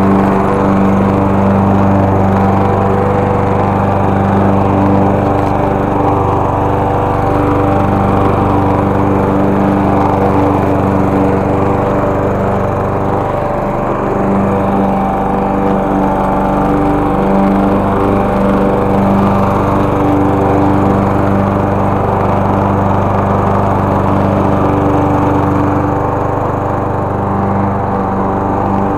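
Walk-behind gas push mower's small single-cylinder engine running steadily while cutting grass, its pitch holding at a constant speed.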